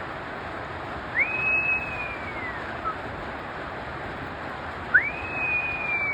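Steady hiss of rain. Over it come two long, high cries, about four seconds apart; each rises quickly, holds, then slowly falls.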